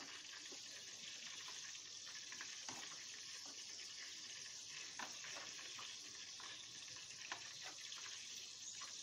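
A knife cutting the crusts off slices of bread on a wooden cutting board, with a few soft knocks as the blade meets the board, over a faint steady hiss.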